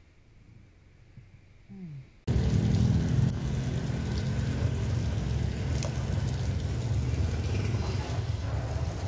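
Steady street noise of motor traffic on a wet road, cutting in abruptly about two seconds in after a near-quiet start.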